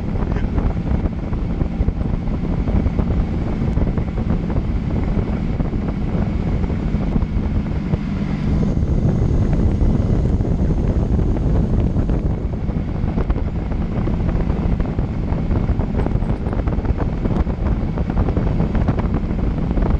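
Rover 3.9-litre V8 with twin turbochargers running steadily as the buggy drives along a gravel track, with wind buffeting the microphone.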